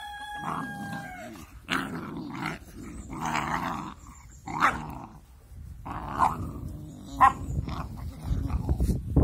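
Two puppies play-fighting: a high whine in the first second, then repeated low growls punctuated by short sharp yips about once a second.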